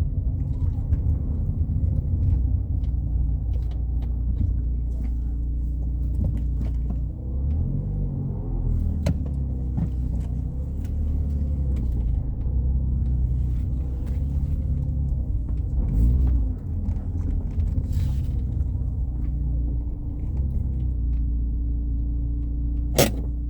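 Fiat Palio Fire heard from inside the cabin while driving: a steady low rumble of engine and tyres on the road. A single sharp click comes near the end.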